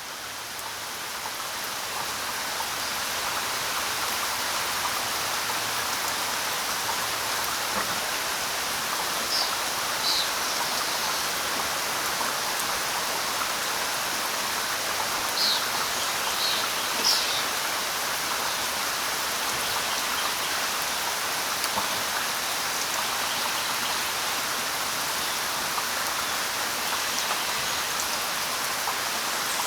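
Steady light rain falling on leaves, fading in over the first few seconds. A few short, high bird chirps come through about ten seconds in and again around sixteen to seventeen seconds.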